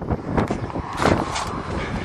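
Irregular knocks and rustling as someone opens a pickup truck's door and climbs into the cab, with three short knocks about half a second, one second and a second and a half in.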